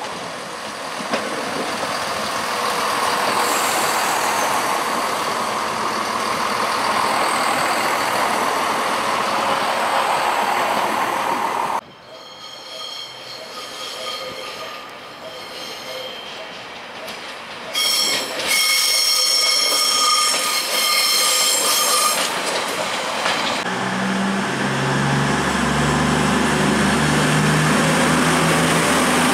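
A Class 170 Turbostar diesel unit running through with a steady rush of wheel and engine noise. About twelve seconds in, a Pacer railbus approaches with high-pitched wheel squeal for a few seconds. A Class 220 Voyager diesel unit then moves along the platform, its diesel engines giving a loud, steady low drone.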